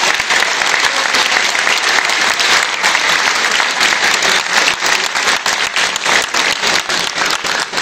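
Audience in a hall applauding performers at their bow: many people clapping steadily at once, the single claps standing out more near the end.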